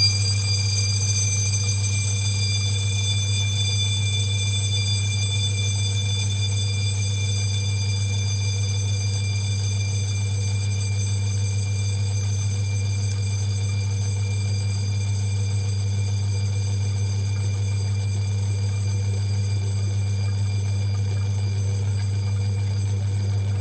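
Electric bell ringing continuously inside a glass bell jar over the steady low hum of a vacuum pump. The bell grows gradually fainter over the first several seconds as the pump draws the air out of the jar, while the pump's hum stays steady.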